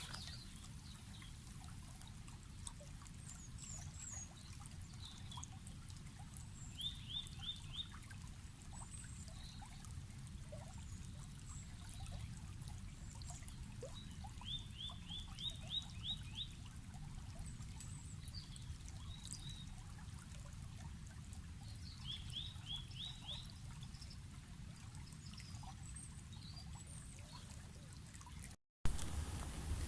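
River water flowing steadily, with birds singing over it: one bird repeats a quick run of four to six slurred notes about every eight seconds, among scattered high chirps from others. Near the end the sound cuts out for a moment and comes back louder.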